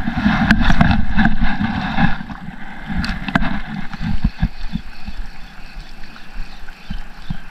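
Wind buffeting the camera microphone over moving water, giving a rough rumble that is strongest in the first two seconds and then eases. A few sharp clicks come through it.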